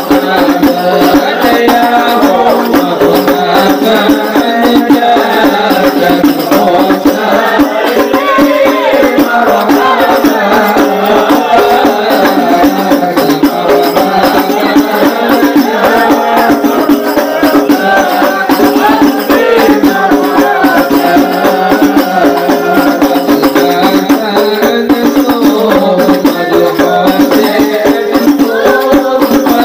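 Habsyi ensemble performing sholawat: a group of voices chanting in unison over continuous beating of terbang frame drums.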